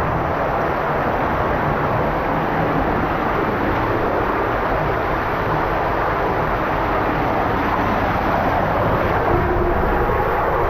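Steady loud rush of water and sliding inside an enclosed water slide tube, with no break or change.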